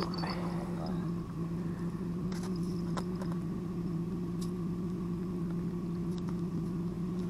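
A steady low engine hum, with a few faint clicks as the tip-up line is handled at the ice hole.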